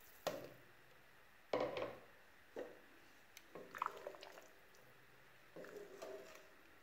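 Wooden spoon stirring a pot of broth: a handful of short, faint liquid sloshes and splashes, the loudest about one and a half seconds in.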